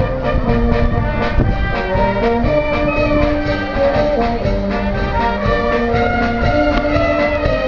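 Maltese brass band playing live: trumpets and trombones carrying a melody in held notes over a steady drum beat.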